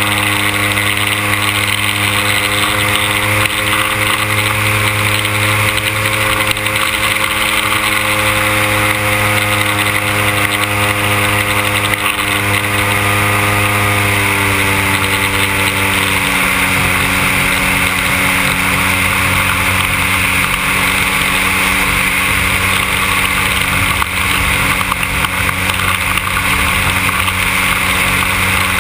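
The 100cc two-stroke petrol engine of a giant-scale radio-controlled Cessna 182 model running steadily, with propeller hiss. About halfway through it drops to a lower, steady speed as the throttle is eased back.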